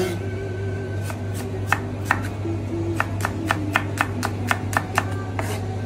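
Kitchen knife slicing shallots on a wooden cutting board: a steady run of sharp taps, about three a second, as the blade meets the board, over background music.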